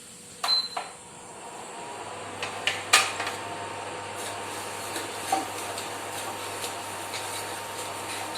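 A stove being switched on: two quick clicks, then a steady low hum with a faint high whine as it runs, and a few sharp clinks of metal cookware, the loudest about three seconds in.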